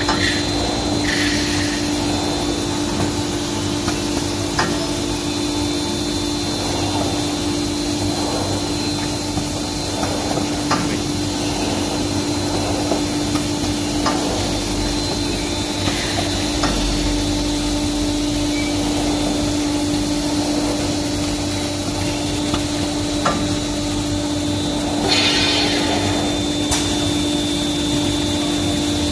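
Maxi roll and kitchen towel converting line running, with its band-saw log cutter: a steady machine hum with a steady tone, scattered knocks and clicks as logs and rolls move, and a short hiss about 25 seconds in.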